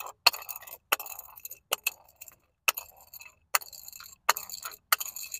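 A capped bottle tumbling down concrete steps, striking each step with a sharp clinking knock that rings briefly. The hits come about every three-quarters of a second, roughly seven in all.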